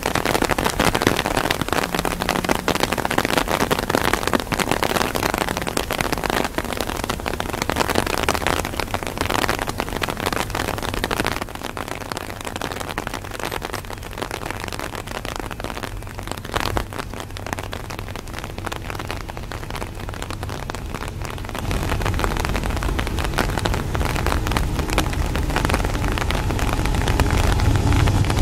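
Rain falling steadily on an umbrella, with dense drops ticking close to the microphone. About three quarters of the way through, the low, steady engine drone of an approaching CSX freight train's diesel locomotives comes in and grows louder.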